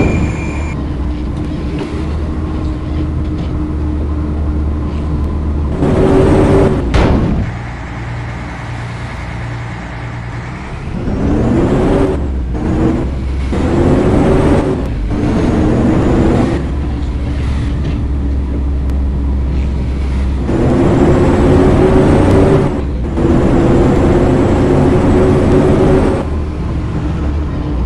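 A vehicle running, with a steady low hum and a motor tone that rises in pitch several times as it speeds up.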